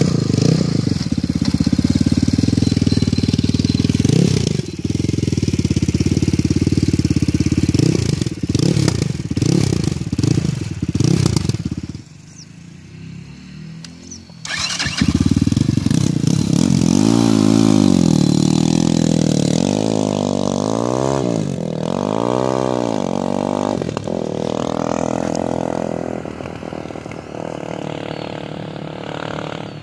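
UM Renegade Commando's single-cylinder engine running loudly through an aftermarket stainless steel Tail Gunner exhaust, blipped repeatedly in the first dozen seconds. After a short quieter stretch it is revved in rising and falling sweeps, then the sound fades away gradually near the end.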